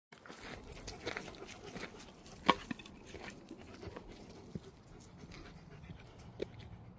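A dog panting close by, with scattered light clicks and scuffs and one sharp click about two and a half seconds in.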